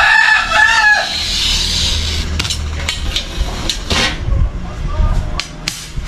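A rooster crowing, its call ending about a second in, followed by a short hiss and a series of sharp clicks and taps from glass panes and tools being handled on the workbench.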